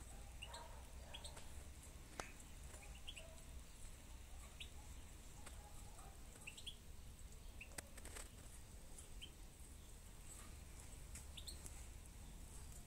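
Faint background of small birds giving short, scattered chirps, with a couple of light clicks over low steady background noise.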